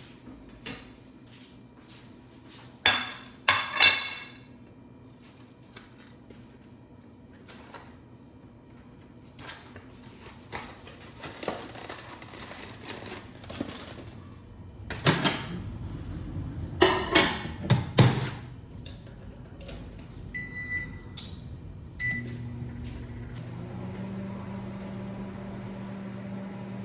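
Kitchen clatter of dishes and cupboard handling, then a microwave oven's keypad beeps and the oven starts, running with a steady hum.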